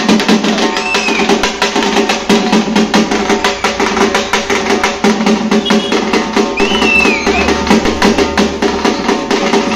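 A tamte drum ensemble playing: handheld tamte frame drums beaten with sticks together with large stick-beaten bass drums, in a fast, loud, continuous rhythm.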